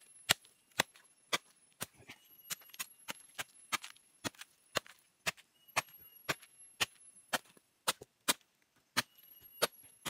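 Machete chopping at the furry rhizome of a golden chicken fern (cu li), stripping off its hairy coat: sharp, even chops about twice a second, with a short pause near the end.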